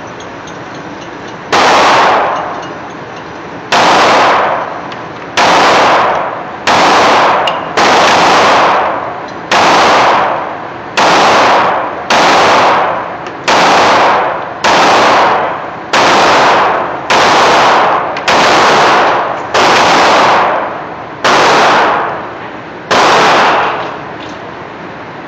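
Springfield XD Subcompact 9mm pistol fired about sixteen times at a slow, steady pace, one shot every one to two seconds. Each loud shot rings on in the echo of an indoor range for about a second, and the shots overload the microphone.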